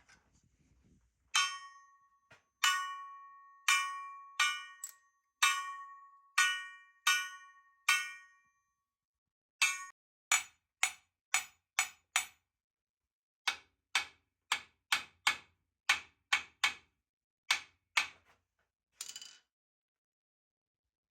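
A large steel turbo cone flange struck repeatedly with a metal tool. The first strikes ring out like a bell with a clear, lingering tone. The later taps are short and dull and die away almost at once, the ring damped as by the Sylomer wrap meant to stop it ringing.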